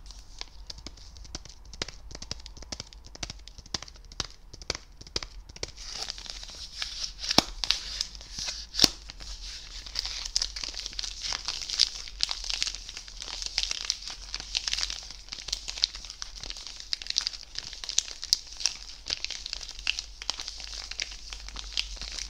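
Plastic wrapper of a Ritter Sport chocolate bar crinkled and squeezed right against a microphone. It is a dense run of crackles that grows busier about six seconds in, with a couple of sharp, louder snaps.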